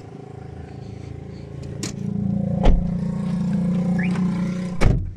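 Toyota sedan's engine idling steadily, getting louder about two seconds in, with a few sharp knocks, the loudest near the end.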